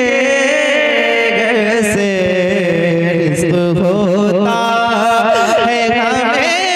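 A solo male voice singing an Urdu devotional manqabat, drawing the words out in long, ornamented notes that waver and glide in pitch, over a steady low held tone.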